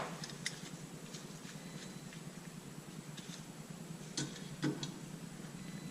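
A few light, scattered clicks and taps as a spring compression tool is handled and fitted onto the spring guide of a Delphi E1 diesel unit injector, the clearest about four and a half seconds in.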